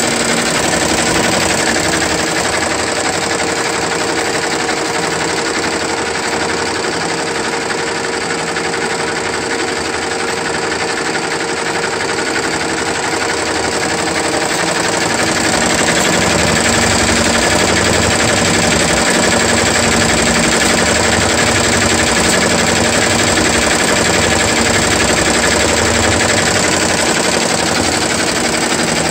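Ricoma RCM1232C two-head commercial embroidery machine running, both heads stitching in a fast, even clatter over a steady hum. It gets a little louder about halfway through.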